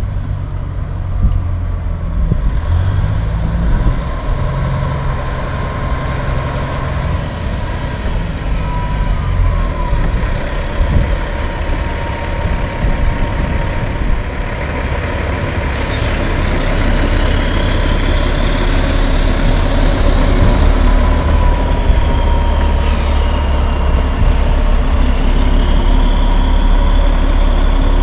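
Diesel engine of a long-hood Peterbilt semi tractor hauling a curtain-side trailer, rumbling as it pulls through a turn and gets louder as it passes close, with a steady high whine over it. Two short hisses of air, about halfway through and again about seven seconds later, are typical of the truck's air brakes.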